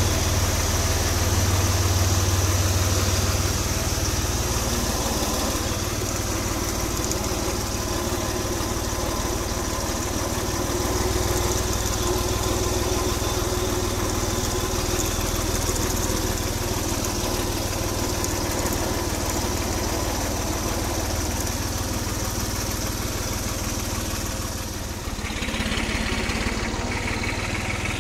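New Holland tractor's turbocharged diesel engine running steadily at low revs while the tractor is driven slowly, a little louder in the first few seconds.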